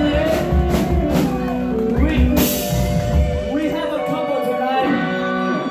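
Live band music: drum hits and a cymbal crash about two and a half seconds in, then held chords with a voice over them.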